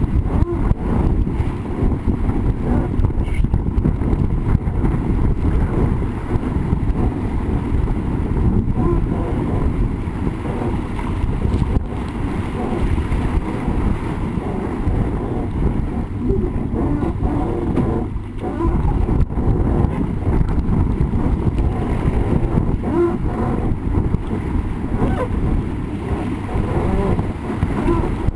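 Wind buffeting the microphone of a deck-mounted camera on a sailing dinghy under way, a steady low rumble with water rushing and spraying along the hull.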